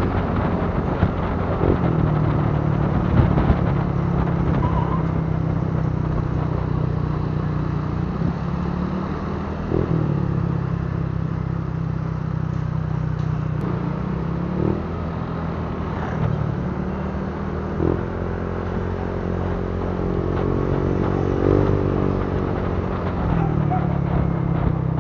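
Motor scooter engine running under way, its pitch rising and falling with the throttle several times, over steady wind and road noise.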